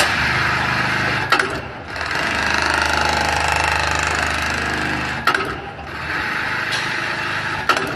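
Industrial automatic pocket-setting sewing machine (RAMBO RM-350) running, its sewing head stitching at speed with a steady, rapid buzz. Three sharp clacks come from the machine: about a second in, about five seconds in, and near the end.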